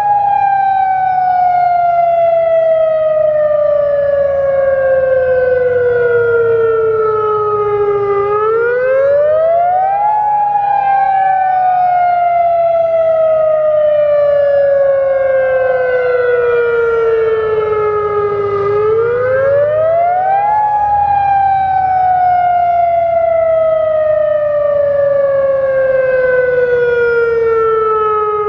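Federal Signal Modulator 4016 electronic outdoor warning siren sounding the attack signal: a loud wail that rises quickly and falls slowly, repeating about every ten seconds. More distant Federal Signal 2001 sirens wail underneath at their own pace.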